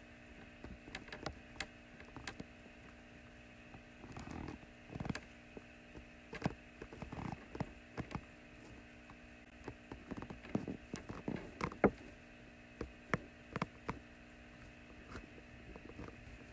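Steady electrical hum under irregular small clicks and soft knocks, scattered through, the sharpest about two-thirds of the way in.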